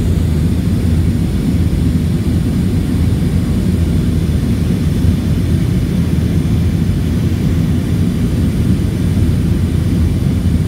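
Wind buffeting the camera's microphone while cycling: a loud, steady, low rumble.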